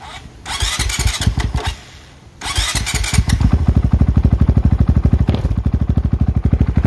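2022 Honda CRF450RL's 450 cc single-cylinder four-stroke engine through an FMF exhaust, revved twice in short blips with a brief sag between them. From about three seconds in it settles into a steady, evenly pulsing idle. The idle is set low, and the owner wants to raise it.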